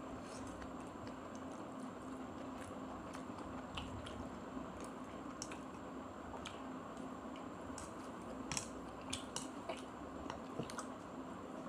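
A person chewing a mouthful of instant noodles, with small wet mouth clicks and smacks that come more often near the end, over a steady background hum.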